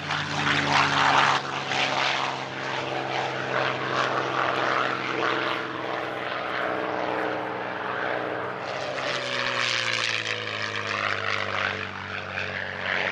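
North American P-51 Mustang's Packard Merlin V-12 engine and propeller running as the fighter flies by, a loud, steady drone whose pitch falls from about nine seconds in.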